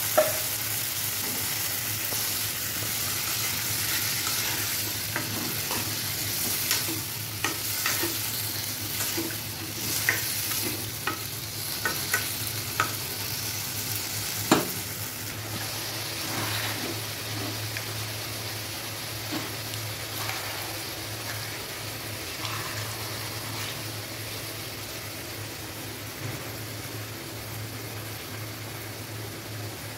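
Potato batons frying in spiced oil in a wok, sizzling steadily, with a spatula scraping and knocking against the pan as they are stirred, the knocks mostly in the first half. The sizzle slowly dies down towards the end.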